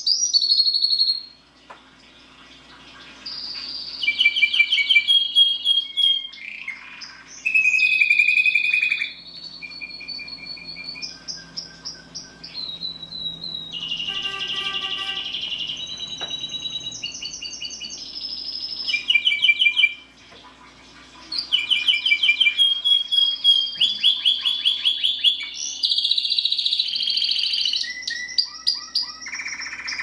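Canary singing a long, varied song of rapid trills and rolling repeated notes, broken by two short pauses.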